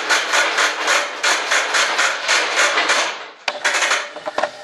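Fast, even rubbing or scraping strokes on a hard surface, about four a second, for about three seconds, then a few sharp clicks and taps.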